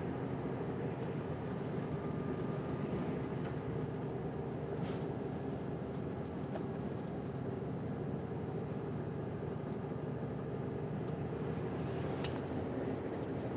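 Steady drone of a semi-truck's diesel engine and tyre noise at motorway cruising speed, heard from inside the cab, with a faint click about five seconds in and another near the end.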